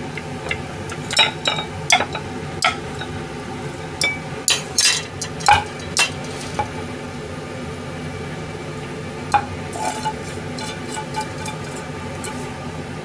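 Chopsticks and a metal ladle clinking and scraping against a stainless saucepan and a ceramic bowl while simmered fish is served out, many quick clinks over the first six seconds and a few more later; then the pot is tipped to pour broth into the bowl. A steady low hum runs underneath.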